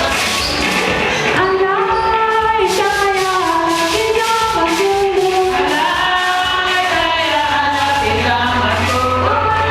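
A group of voices singing a church song with a steady percussive beat.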